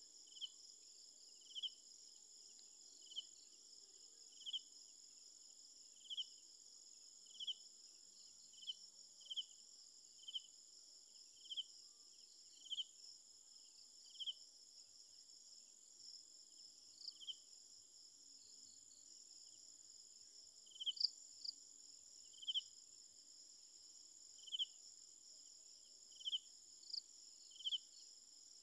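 Night insects calling faintly: a steady high-pitched trill, with a separate short, sharp chirp repeating about once a second at an uneven pace.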